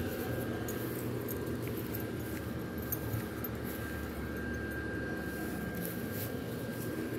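Electric blower fan of an inflatable Halloween yard decoration running steadily: a low hum with a faint thin whine over it.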